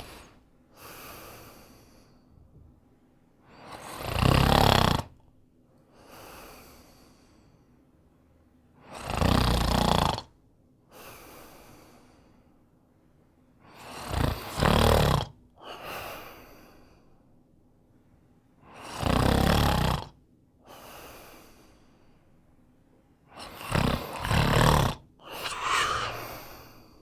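Snoring in a slow, even rhythm: a loud snore about every five seconds, five times, each followed about a second later by a much softer breath.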